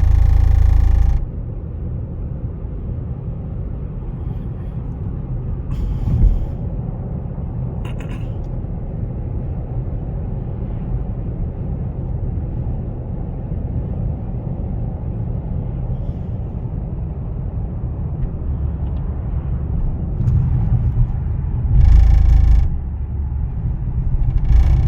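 Cadillac CTS Sport Wagon with a steady low rumble, broken by loud, harsh, buzzing bursts about a second long: one right at the start, one about 21 seconds in, and shorter ones around 6, 8 and 24 seconds. The bursts are the abnormal noise the owner cannot identify.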